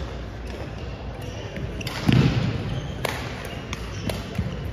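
Badminton rally sounds in a gymnasium: sharp racket hits on shuttlecocks come every half second or so, with a louder thud about two seconds in.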